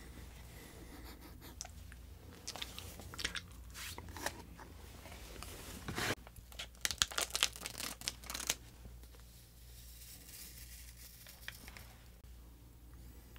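Plastic packaging of a Popin Cookin hamburger kit being handled, crinkled and torn open. A run of sharp crackles comes densest about six to eight seconds in, then only quieter handling.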